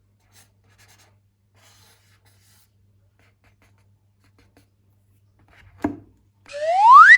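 Faint handling and rubbing, then a sharp snap about six seconds in, followed near the end by a loud squeal rising steadily in pitch: air escaping through a stretched balloon neck.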